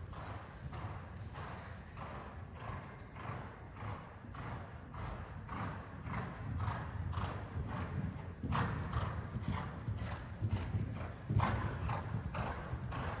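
Warmblood mare cantering on an arena's sand footing: a steady train of hoofbeats, about two a second, growing louder as she comes nearer. Two heavier thuds stand out, one about eight and a half seconds in and one about eleven and a half.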